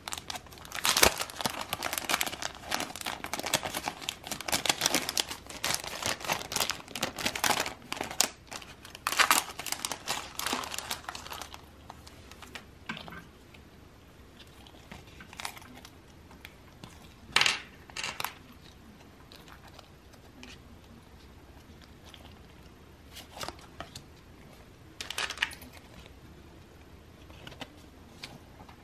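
Plastic crinkling and rustling as a photo card and a plastic photocard holder keyring are handled. It is dense for about the first eleven seconds, then thins to scattered single crinkles and light clicks.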